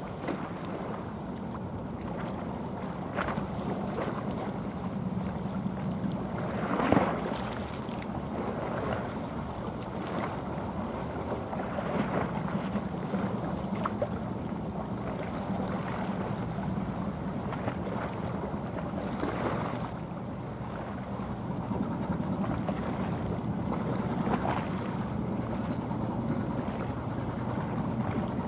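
Steady low engine hum of a small coastal sand carrier passing by, mixed with wind buffeting the microphone and the wash of water, with a louder gust about seven seconds in.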